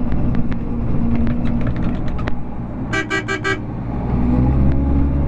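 Trail-grooming vehicle's engine running, with its horn tooted in four quick beeps about three seconds in, sounded to shoo ducks off the trail. A run of light clicks comes in the first two seconds, and the engine grows louder near the end.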